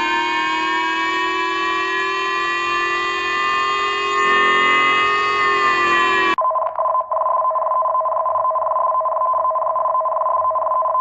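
Electronic emergency-alert tones. A harsh chord of steady tones creeps slightly upward in pitch, then cuts off abruptly about six seconds in. It switches to a thinner, duller steady two-note tone, like a telephone line tone.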